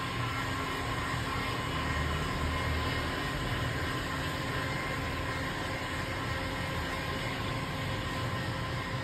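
Electric heat gun running steadily: a blowing hiss of hot air with a constant motor whine, held close over window tint film.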